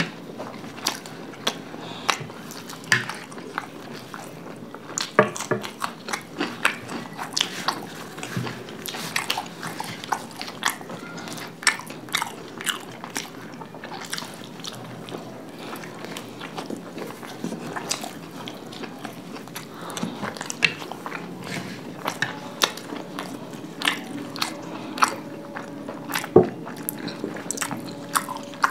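Close-up chewing and biting of gobi parathas (cauliflower-stuffed flatbread) with curd: a run of irregular wet mouth clicks and lip smacks from two people eating fast.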